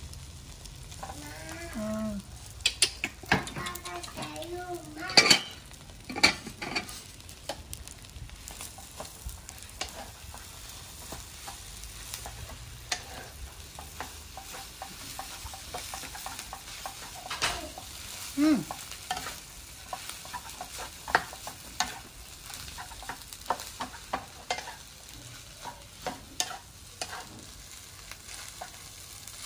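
Egg fried rice sizzling in a nonstick frying pan on a gas burner while a wooden spatula stirs and scrapes it, with frequent knocks of the spatula against the pan, the loudest about five seconds in.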